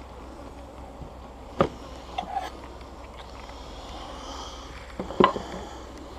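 Honeybees buzzing steadily around an opened hive, with a few sharp knocks and clicks, about two seconds in and again near five seconds.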